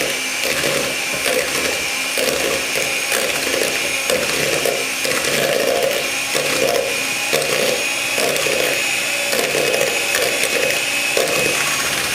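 Electric mixer running at a higher speed, beating butter and sugar: a steady high motor whine with an uneven, choppy clatter underneath.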